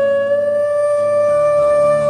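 Background music: a flute holds one long steady note over a low accompaniment, which shifts to a new pitch about a second and a half in.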